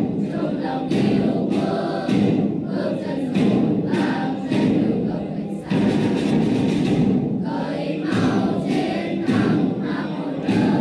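A choir of children singing together in phrases separated by short breaths.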